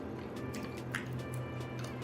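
Background music, with a few faint clicks over it.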